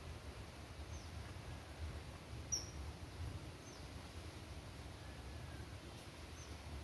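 A small bird giving a few short, high chirps, each falling in pitch and spaced irregularly, over a faint low rumble.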